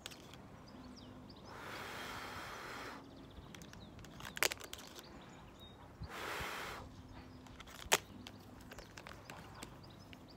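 Two long breathy blows, each a second or so, as soap bubbles are blown from a pink bubble wand, with a few sharp clicks between them.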